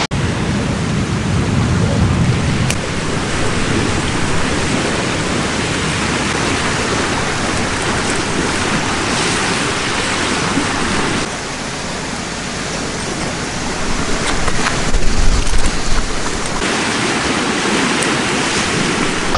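Strong wind buffeting the microphone over choppy, wave-tossed water: a loud, steady rush of noise. The sound changes abruptly twice, once past the middle and again near the end.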